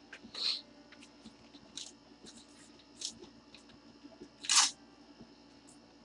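Trading cards and foil pack wrappers being handled on a tabletop: scattered light clicks and short rustles. The loudest is a brief crinkle about four and a half seconds in.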